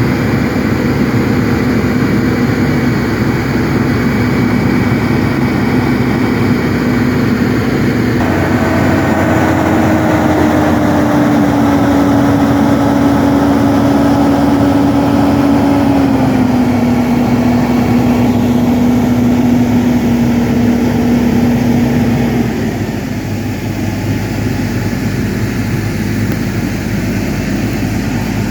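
An engine running hard with a steady tone. About eight seconds in it speeds up, then its pitch slowly sags and steps down, and about twenty-two seconds in it eases off and the sound gets a little quieter.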